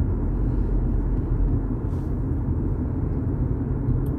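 Steady low rumble of a car in motion heard from inside the cabin: engine and road noise.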